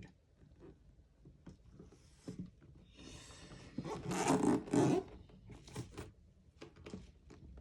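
Hands handling and turning a camera box: scattered taps and clicks, and a rustling scrape about three seconds in that grows loudest near the middle.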